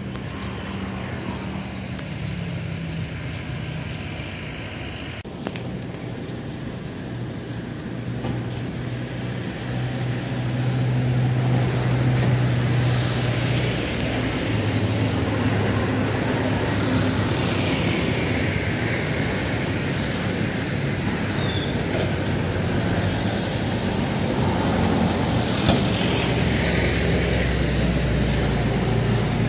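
Road traffic: motor vehicles driving past with engine and tyre noise, several passing one after another. It grows louder about ten seconds in.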